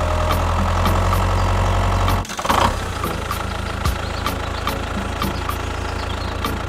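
A vehicle engine running steadily with a deep hum that cuts off abruptly about two seconds in. A lighter engine-like running sound with faint regular ticks follows.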